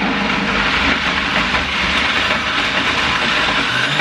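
Bestek 1000 W countertop jug blender running steadily at speed, its motor and blades churning a thick frozen-fruit smoothie. The user senses a clump in the jug that the blades are not catching.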